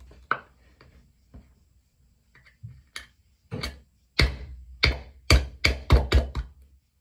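Sharp knocks of a hand striking the top of a plastic bottle, forcing something into it: a few scattered knocks at first, then about three a second from about four seconds in.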